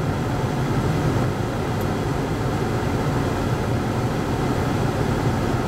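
Hurricane-force wind rushing in a loud, steady roar, heaviest in the low end, with no separate gusts or impacts standing out.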